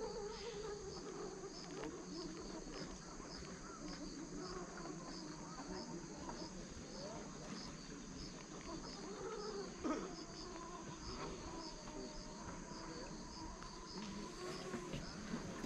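Crickets chirping in a steady rhythm, about two or three chirps a second, over a constant high hum. A single sharp knock about ten seconds in.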